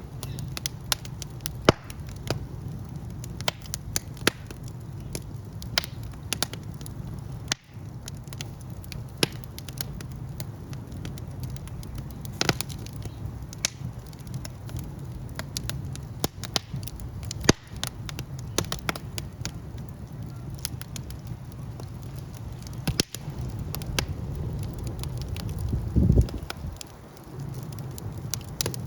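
Fire burning with a steady low rumble and irregular sharp crackles and pops, one burst louder and deeper than the rest near the end.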